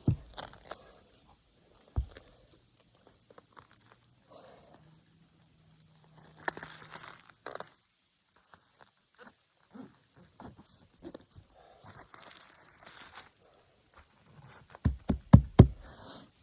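Roofing work by hand: scattered knocks, short scraping and rustling of shingle and roofing material being set and worked down, with a quick run of loud knocks near the end. A steady high buzz runs underneath.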